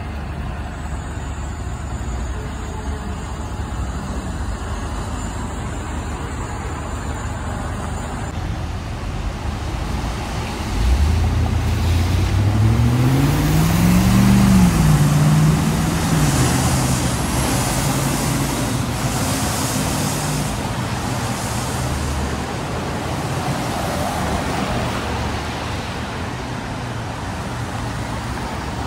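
Front-loader garbage truck's engine accelerating as it passes, over traffic and tyre noise on a wet road. Near the middle its note climbs, drops at a gear change and climbs again, then settles to a steady drone as it moves on.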